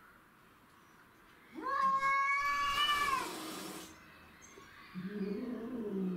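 Cats fighting: about a second and a half in, one cat gives a loud, high yowl that is held for over a second and ends in a hiss. Near the end a lower, drawn-out caterwaul begins.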